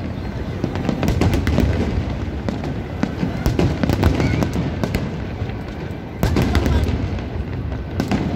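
Aerial fireworks bursting in quick succession: a dense run of bangs and crackles over a constant low rumble, with a louder volley starting a little after six seconds in.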